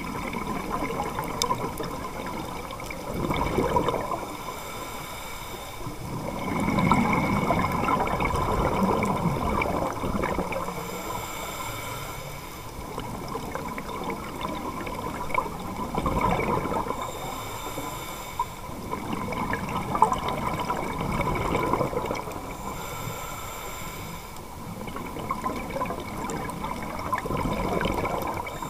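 Scuba diver's regulator breathing heard underwater: long rushes of gurgling exhaled bubbles about every six seconds, each preceded by a shorter, higher hiss of inhalation through the regulator.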